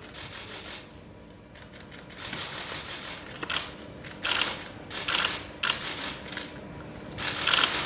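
Camera shutters firing in rapid bursts: several short runs of quick clicks, each well under a second, over a faint steady hum.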